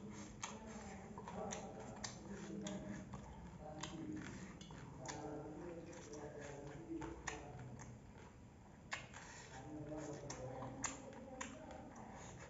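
Close-up eating sounds of a person eating chicken curry by hand: wet lip-smacking, chewing and sucking at the meat, with many short sharp clicks scattered throughout.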